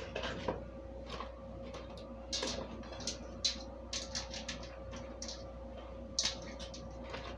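Irregular rustling and light clicks of cut vegetables being handled and packed into plastic freezer bags, over a faint steady hum.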